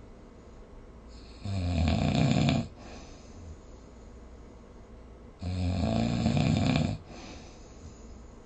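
A sleeping person snoring: two loud snores about four seconds apart, each lasting a little over a second, much quieter in between.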